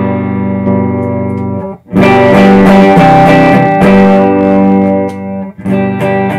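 Electric guitar chords strummed and left ringing through a KLD Pilot15 15-watt 6L6 tube amp, demonstrating its boost switch. A chord rings and fades, then after a short break about two seconds in a louder chord rings out, and another is struck near the end.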